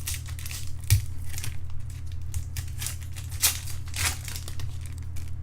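Trading cards and foil pack wrappers being handled: a string of short crinkles and scrapes, with a sharp tap about a second in.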